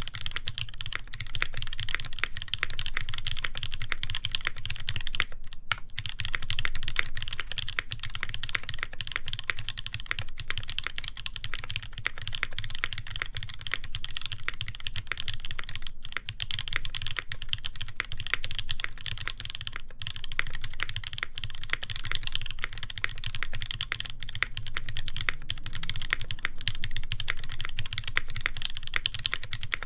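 Continuous fast typing on an Iron180 mechanical keyboard with a full brass plate, lubed Moss switches and GMK keycaps: a dense stream of keystroke clacks, with a brief pause about five and a half seconds in.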